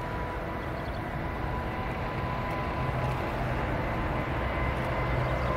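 Jet engines of an ANA Airbus A380, four Rolls-Royce Trent 900s, running as the aircraft rolls along the runway, a deep rumble with a steady whine on top that grows slowly louder as it approaches.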